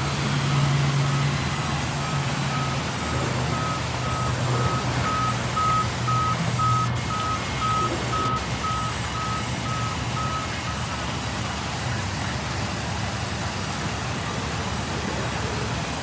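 Sawmill band saws running with a steady low hum and mechanical noise as timber is fed through. A high electronic beep repeats about twice a second over it and stops about ten seconds in.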